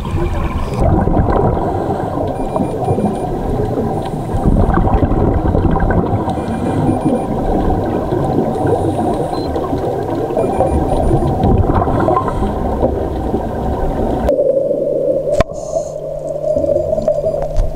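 Underwater rumble and gurgle of scuba exhaust bubbles and water moving against the camera's underwater housing, a dense, churning noise. About three-quarters through, it changes to a steadier low hum.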